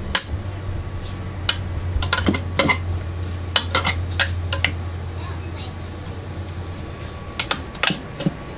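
A metal spoon clinking and scraping against a plastic food processor bowl as steamed cauliflower is spooned in: about a dozen sharp knocks in uneven clusters. A steady low hum runs underneath and fades out near the end.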